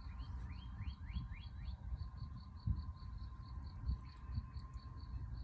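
A bird calls a quick series of five or six rising notes in the first two seconds. Underneath, a steady pulsing call repeats about five times a second, over a low rumble.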